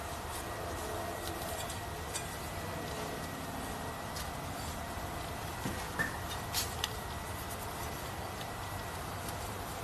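Steady background hum with a faint constant whine, and a few light clicks about six to seven seconds in.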